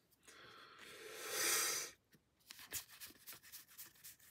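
Magic: The Gathering cards from a freshly opened booster pack sliding against each other in a soft rub about a second in, then light clicks as the cards are fanned apart in the hands.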